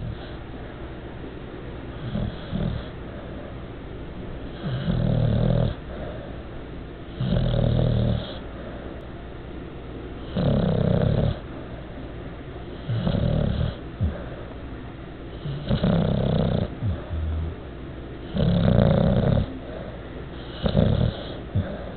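Bulldog snoring in deep sleep: a loud rasping snore about every two and a half to three seconds, each lasting about a second.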